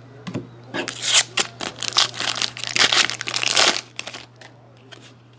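Foil wrapper of a hockey card pack crinkling as it is opened by hand and the cards are pulled out. The crackling runs for about three seconds and stops about four seconds in.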